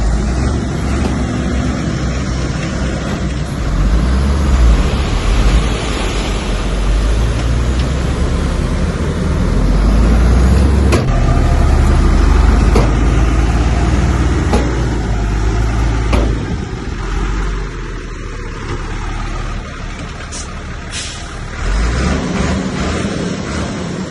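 Heavy diesel earthmoving machinery running hard, a deep engine rumble that swells and eases, with a few sharp knocks in the middle.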